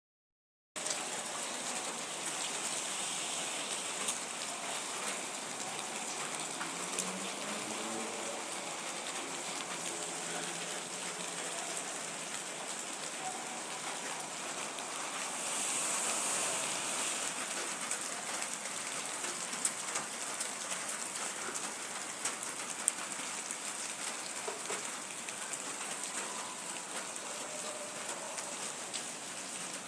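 Steady rain falling, with scattered louder drops ticking through the hiss. The rain starts about a second in and swells briefly near the middle.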